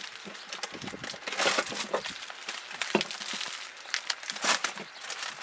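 Crinkly packaging rustling and crackling as it is handled, with irregular small clicks; it is louder about a second and a half in and again about four and a half seconds in.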